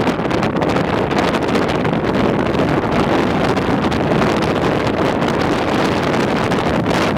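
Strong wind buffeting the microphone: a loud, steady rush of noise.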